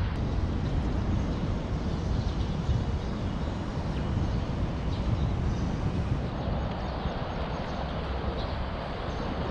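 Steady, uneven low rumble of wind buffeting the microphone outdoors, with a few faint ticks.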